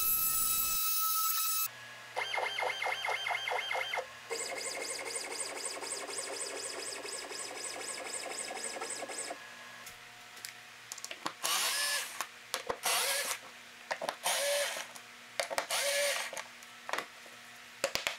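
Inventables X-Carve CNC router cutting into a cedar board, its spindle giving a loud high whine with cutting noise. This stops a little under two seconds in. Next the machine runs in a rhythmic pulsing pattern for about two seconds, then in a steadier whir until about nine seconds in. Later comes a series of short scraping and rustling sounds as the carved board is handled.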